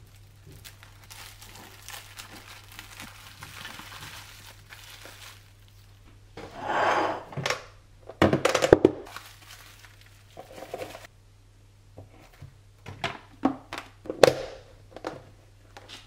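Cling film crinkling softly as a toast sandwich is wrapped, then a louder rustle and a cluster of sharp knocks about eight seconds in as a plastic food container is handled on a kitchen countertop, with a few more clicks and taps near the end. A low steady hum runs underneath.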